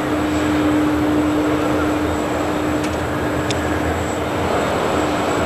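Steady jet aircraft noise on an airport apron: an even roar with a constant hum. Two faint short clicks come in the middle.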